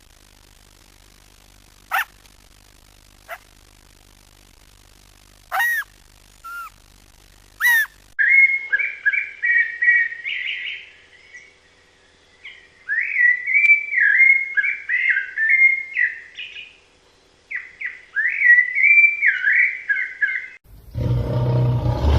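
A songbird singing a long, warbling song in repeated phrases, preceded by a few short, sharp high calls spaced seconds apart. Near the end a loud, deep animal sound begins suddenly.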